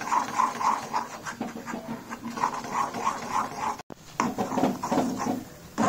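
A slotted spatula stirring and scraping thick wheat halwa in a kadai, a quick rhythmic squelching of about three strokes a second, briefly cutting out about four seconds in. The halwa has thickened into a glossy mass that pulls away from the pan, the stage at which it is nearly done.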